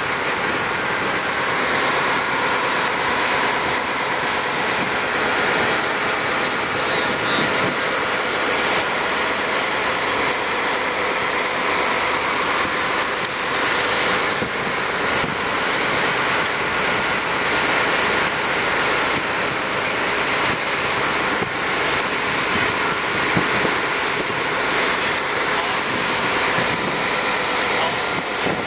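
Fishing boat under way at speed: a steady rush of wake water and wind on the microphone over the drone of the boat's engine.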